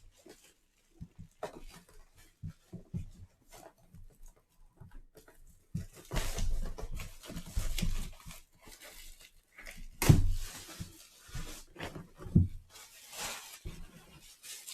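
Cellophane wrap being cut and pulled off a cardboard box: crinkling and tearing in irregular bursts, with small knocks of the box being handled.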